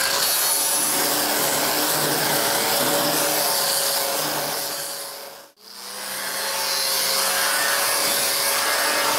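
Small handheld grinder with an abrasive disc running against the steel drip rail of a truck roof, grinding off leftover spot-weld metal: a steady motor whine under the hiss of the disc on metal. The sound fades out for a moment about five and a half seconds in and comes back the same.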